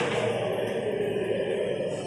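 Devotional chanting with music in a temple, held notes going on steadily.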